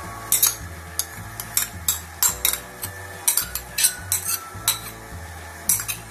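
A metal spoon scraping and clinking against a ceramic bowl while scooping out thick condensed milk. About a dozen short, sharp scrapes come at an uneven pace.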